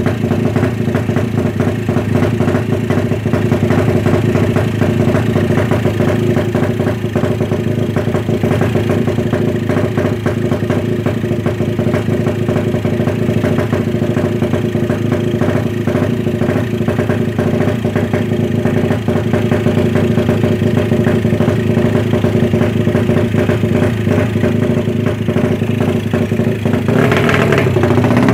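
Suzuki Satria FU's single-cylinder four-stroke engine, race-tuned with a ported head, idling steadily with a fast mechanical clatter while it is set up, then revving up near the end.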